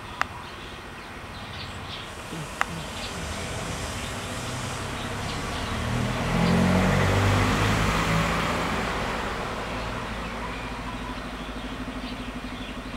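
A motor vehicle passing by: a broad engine-and-road sound that grows louder to a peak about halfway through and then fades. Two sharp clicks in the first few seconds.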